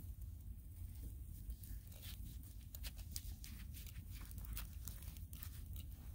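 Handling noise from gloved hands working a leather hatchet sheath onto a Husqvarna hatchet head: soft rustles and irregular small clicks over a steady low rumble.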